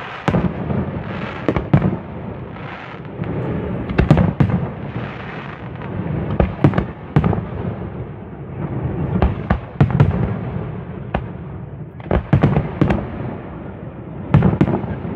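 Fireworks display: many sharp bangs in quick succession over a continuous crackle, a steady barrage of aerial shells bursting.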